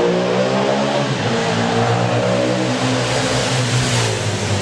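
Engine revving, its pitch dipping and then climbing again.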